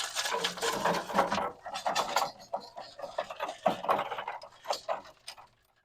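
Hot natural lump charcoal poured out of a chimney starter, the pieces clattering and clinking onto the grill's charcoal grate. The clatter is densest at first, then thins to scattered knocks and stops shortly before the end.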